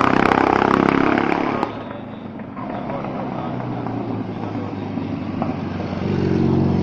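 Racing motorcycle engine at high revs, cut off abruptly just under two seconds in. Then a quieter stretch, and near the end a racing sidecar outfit's engine grows louder as it passes close by.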